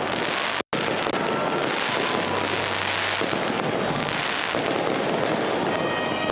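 Fireworks display: a dense, continuous run of crackling and popping from many shells bursting at once. The sound drops out for an instant a little under a second in.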